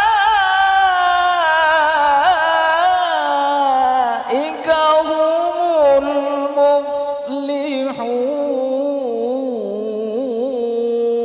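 A man reciting the Quran in the melodic tilawah style into a handheld microphone. His long ornamented phrases are sung on sustained pitches, with short breaks about four and eight seconds in, and the passage ends on a long, steady held note.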